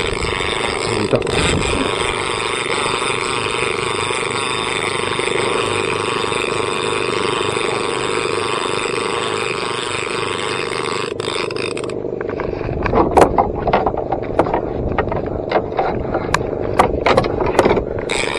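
Small fishing boat's engine running steadily under way, a constant drone. About twelve seconds in, the higher hiss drops away and a run of sharp, irregular knocks and clicks follows over the engine.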